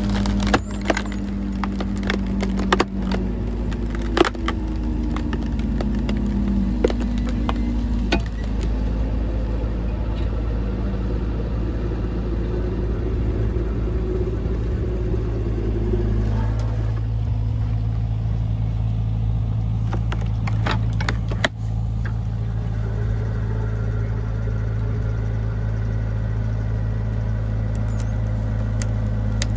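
Mini excavator's engine running steadily under hydraulic load as a screw-cone log splitter drives into a large beech log, with sharp cracks and creaks from the wood, mostly in the first several seconds. The log is too big for the splitter to split.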